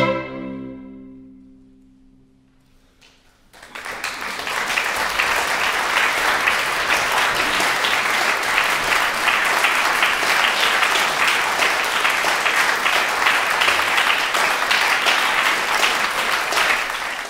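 The final chord of a string quartet dies away in the hall's reverberation, a short hush follows, and about three and a half seconds in the audience breaks into steady applause.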